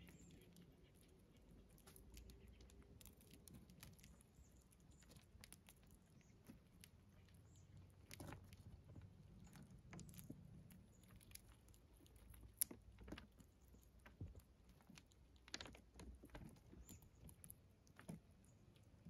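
Faint, scattered clicks and crunches of a gray squirrel and chipmunks chewing and picking through dried corn kernels, with one sharper click a little past the middle.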